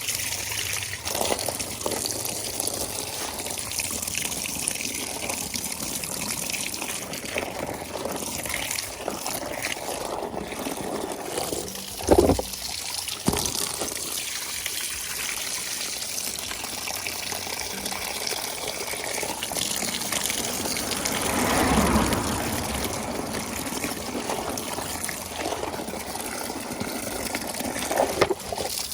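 Water running and splashing steadily, with two sharp knocks about twelve and thirteen seconds in and a brief swell of water noise a little past twenty seconds.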